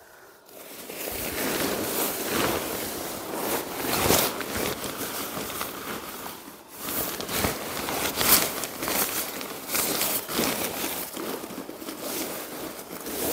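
Folded pop-up tent fabric and rainfly rustling and crinkling continuously as the bundle is handled, squeezed and tied up by hand, with many short crackles and a brief lull a little past the middle.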